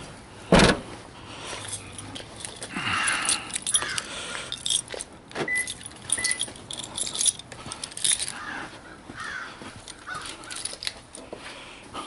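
An SUV's rear liftgate slammed shut with one loud thud, then keys jangling with small clicks and rustles. Two short beeps sound a little past halfway.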